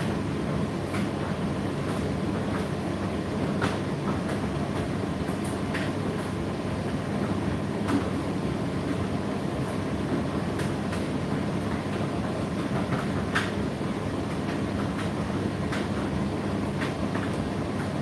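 Indesit IDC8T3 condenser tumble dryer running: a steady drum-and-motor hum with scattered light clicks and taps.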